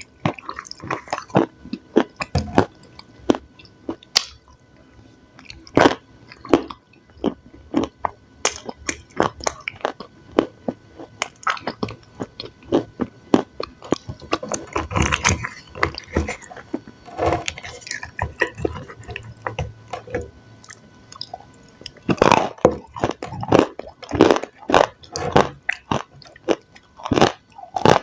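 Close-miked eating sounds: a person chewing and biting food, with many short, irregular mouth clicks and smacks, coming in denser, louder clusters in the last few seconds.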